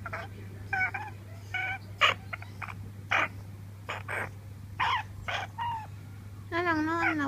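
African grey parrot vocalising: a string of short clicks, chirps and whistled notes, then a longer wavering call beginning about six and a half seconds in.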